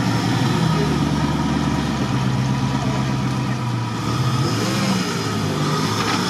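GAZ-66 off-road truck's engine working hard under load as the truck tries to climb out of a muddy water pit. The engine note steps up about a second in, then dips and rises again between four and five seconds in.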